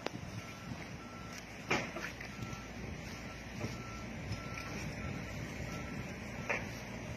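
Komatsu PC70-8 mini excavator's diesel engine running under its warning alarm, which beeps steadily at one pitch about one and a half times a second. A few sharp knocks come through, the loudest about two seconds in.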